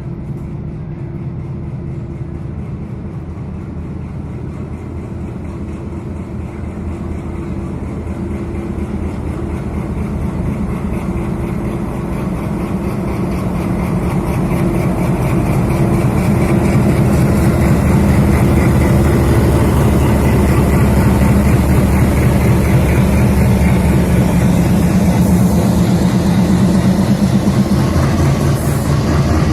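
WDG3A diesel-electric locomotive's 16-cylinder ALCO 251 engine running with a steady, heavy throb as it approaches, growing louder about halfway through and then holding loud.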